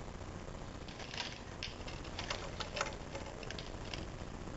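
Pieces of a snap-together plastic model airplane kit being handled, giving a scattering of light, irregular clicks and taps of plastic parts and small screws.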